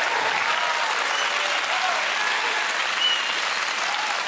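Audience applauding and cheering, with a few short whoops over the clapping.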